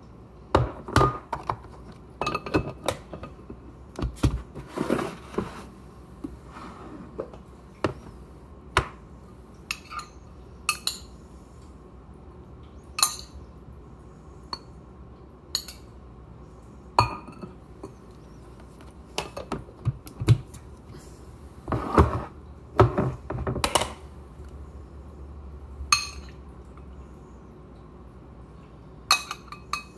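A spoon knocking and scraping food out of glass storage containers into a ceramic bowl: irregular sharp clinks and knocks of glass and metal on crockery, some in quick runs.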